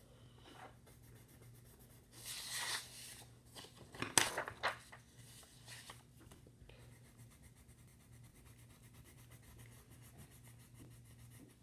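Paper being handled on a table: a rustling swish about two seconds in, then a few sharp crinkles around four seconds in, the loudest part, with a faint steady low hum underneath.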